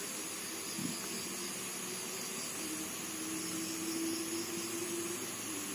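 Steady, even background hiss of outdoor ambience with no distinct event, and a faint steady hum in the middle.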